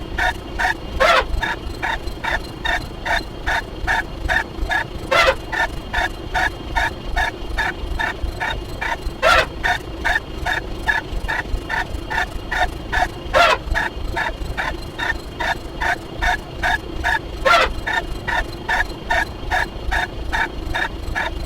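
A looped sound effect: short pitched pulses about three times a second, with a longer sweeping squawk-like call every four seconds or so, repeating evenly.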